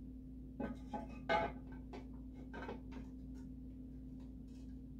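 A few light clinks and knocks as a ceramic snowman jar is handled and shifted on a granite countertop, the loudest about a second and a half in, over a steady low hum.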